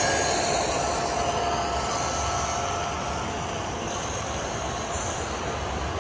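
Diesel engine sound from the sound decoders of two HO scale model locomotives (CN SD70ACe and Dash 9 with ESU LokSound 5), playing through their small onboard speakers and slowly fading as they move away, over a steady noise of freight cars rolling by.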